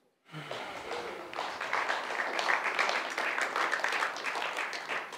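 Congregation applauding: many hands clapping together, swelling over the first second or two and dying away near the end.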